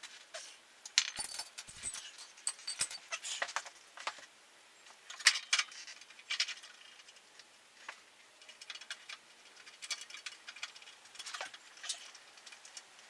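Irregular metallic clinking and rattling, a series of short clicks and clanks with pauses, from hand tools and hardware being handled during work on a motorcycle's rear drive chain.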